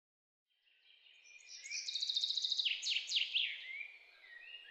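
Birdsong fading in after about half a second of silence: rapid trilled notes, then several quick downward-sweeping whistles, easing off near the end.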